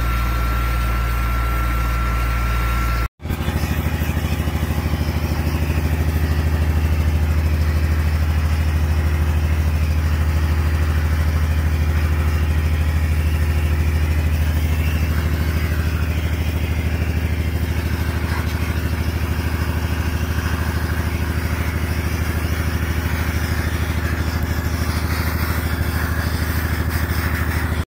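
Sandblasting a steel cement tanker: the steady hiss of the abrasive blast over the continuous drone of the air compressor's engine. The sound drops out for a moment about three seconds in, then carries on.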